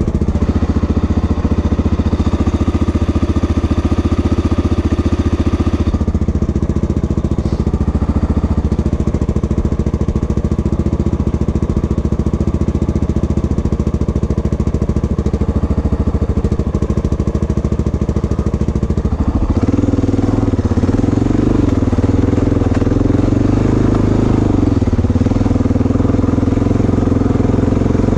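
Dirt bike engine running steadily. Its note changes about six seconds in, and from about twenty seconds in it gets louder and higher, its pitch rising and falling.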